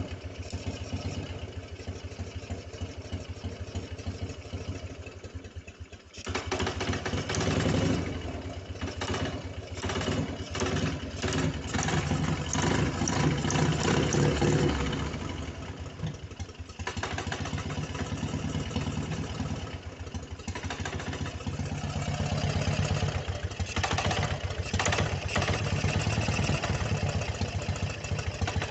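Vehicle engine running with a knock. The engine speed picks up about six seconds in, settles back around the middle and rises again later.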